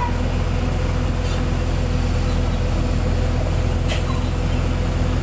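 Vehicle engine running steadily as a low drone with road noise.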